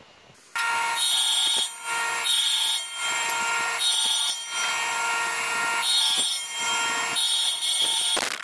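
Table saw starting in about half a second in, running with a steady whine, with five harsher hissing stretches as a small block of wood is fed into the blade.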